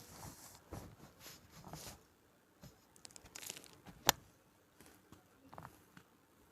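Slab of gym chalk with a cornstarch topping being crushed: soft, crumbly crunching and crackling, with one sharp snap about four seconds in.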